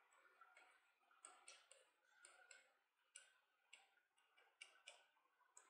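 Faint, irregular ticks and short scratches of chalk writing on a blackboard, a dozen or so strokes spread unevenly.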